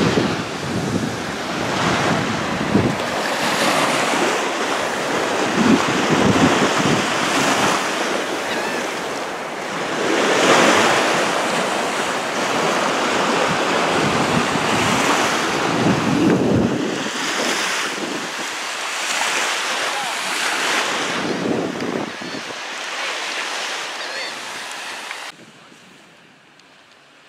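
Small waves washing up on a sandy shoreline and drawing back, swelling and easing every couple of seconds, with wind buffeting the microphone. About two seconds before the end it drops suddenly to a much quieter wash.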